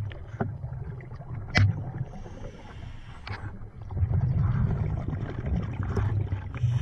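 Underwater sound of a scuba diver's breathing through a camera housing: a low, muffled rumble and gurgle of exhaled bubbles with scattered sharp clicks, growing louder about four seconds in.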